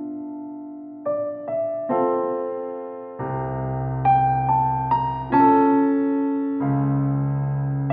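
Background music: a slow, soft electric piano playing separate notes and chords, each struck and fading, with a deeper bass chord coming in about three seconds in and again near the end.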